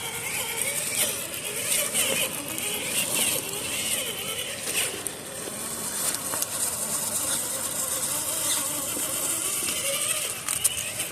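Traxxas TRX4 RC crawler driving in low (first) gear: its electric motor and geartrain whine, the pitch rising and falling with the throttle, with scattered clicks and knocks from the tyres on rocks.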